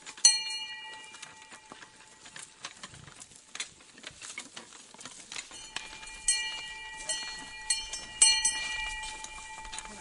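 Village ambience: a run of knocks and clicks, with several sharp metallic clanks that ring on with a bell-like tone, the loudest just after the start and about eight seconds in.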